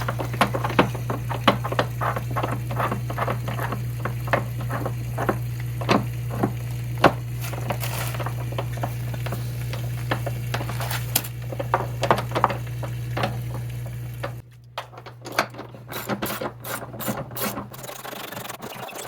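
Socket ratchet clicking in quick repeated strokes while tightening the clamp band bolt on a cartridge filter housing, over a steady low hum that cuts out about three-quarters of the way through.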